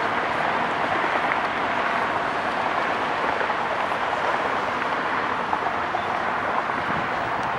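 Boeing 757-200 jet engines at takeoff thrust on a departure, a steady rushing engine noise that holds even throughout.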